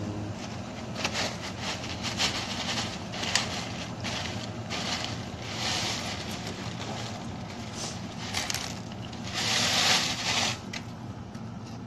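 Plastic food packaging crinkling and rustling in short bursts while its contents are tipped into a cooking pot. The loudest burst comes near the end as the empty clear plastic bag is shaken. A low steady hum runs underneath.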